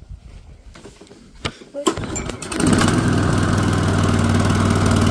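Lawn mower engine with a freshly fitted NGK spark plug being started. After a few rattles and knocks, a sharp loud click comes about two seconds in. The engine then catches and settles into steady, loud running.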